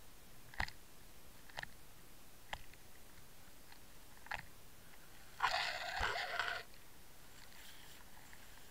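Knocks and clicks picked up through the housing of an underwater camera on a fishing line during a lure retrieve. There are four sharp clicks about a second apart, then a louder rasping scrape lasting about a second, about five and a half seconds in.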